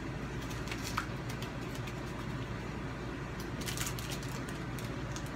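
A steady low hum, with a single click about a second in and a short spell of faint crackles near the end, from snack eating.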